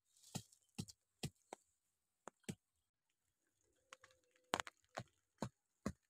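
Wooden stakes being pounded by hand into dirt ground: a series of sharp knocks, irregularly spaced, with a pause of about a second midway.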